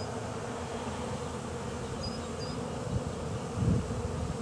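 Honeybee swarm buzzing steadily as bees still fly around the hanging swarm cluster, a sign the swarm has not yet fully settled. A brief low bump comes about three and a half seconds in.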